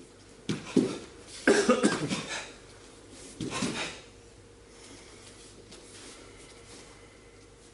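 Karateka performing a kata in a large echoing hall: a couple of sharp snaps of gi cloth, then short, forceful vocal bursts timed with the techniques, loudest about a second and a half in and again near the middle, before the movement goes quiet.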